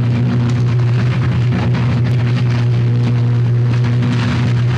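Uncontrolled high-voltage arc burning in a power substation: a loud, steady low electrical buzz with overtones and continuous crackling, the sign of a sustained fault arc.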